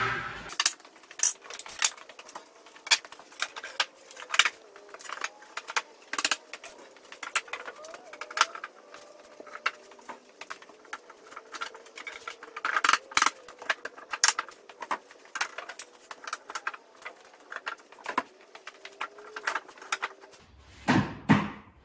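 Wooden boards knocking and clattering on a concrete floor as they are set down and fitted together into a finger-jointed raised-bed frame: a long run of sharp, irregular clacks, louder in clusters around the middle and near the end.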